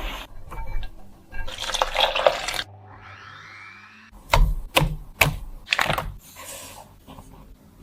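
Food-preparation sounds: a noisy, watery stretch, then a quick run of sharp knocks and clicks about halfway through.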